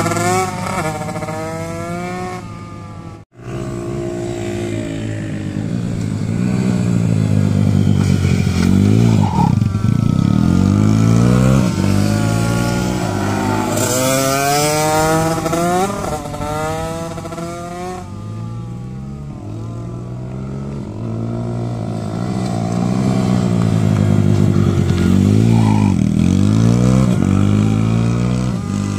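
Small mini motorcycle engines, a Bucci BR10GP mini supermoto among them, revving up and down through a corner. The bikes pass close several times, each engine pitch dropping as it goes by. The sound cuts out briefly about three seconds in.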